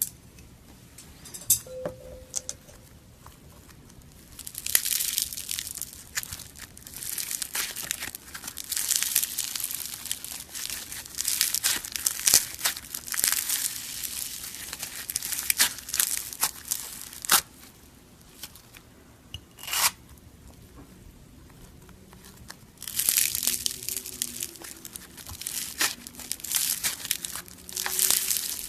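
Crisp crackling and crunching as a soft, crumbly material is squeezed and crushed by hand. It comes in long stretches of dense crackle, with a few sharp snaps and quieter pauses between them.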